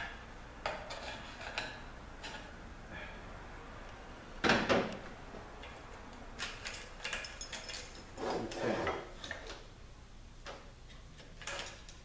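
Hand work on an automatic transmission case as its plastic wiring-harness connector is squeezed and eased out: scattered light clicks and taps of plastic and metal parts, with a louder knock about four and a half seconds in and a longer clunking rub about eight and a half seconds in.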